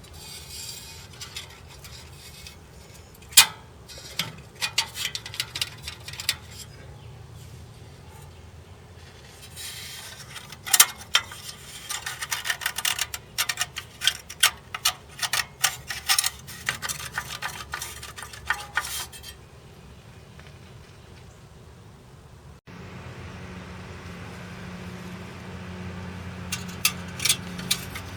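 Irregular metallic clinks and taps, coming in busy spells with pauses between. About three-quarters of the way through the sound changes suddenly to a steady low hum, with more clinks near the end.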